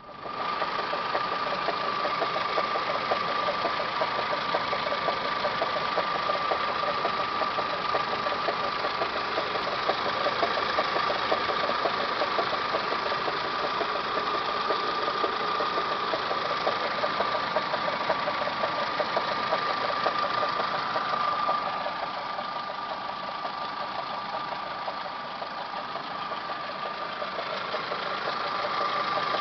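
1999 Toyota Camry's 5S-FE four-cylinder engine idling with a steady high-pitched whine and a fast, even ticking: the weird noise that the owner traces to the timing belt or water pump area. The noise eases off for a few seconds about three quarters of the way through, then comes back.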